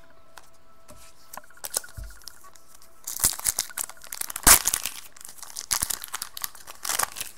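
A foil Panini Contenders football card pack being torn open, its wrapper crinkling and crackling rapidly for about four seconds from about three seconds in. Before that come a few light clicks of cards being handled.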